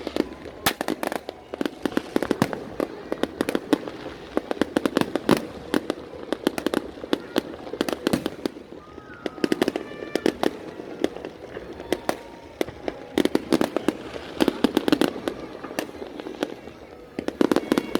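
Aerial fireworks going off in a dense, irregular barrage of sharp bangs and crackles, several a second and never stopping, with a few short whistling tones about nine to ten seconds in.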